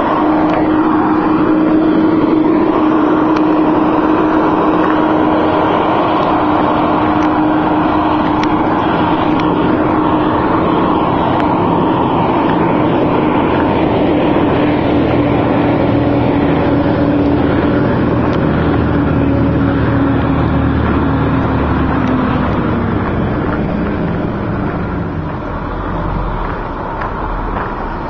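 An engine running steadily with a constant low hum that slowly drops in pitch about twenty seconds in, the sound easing a little near the end.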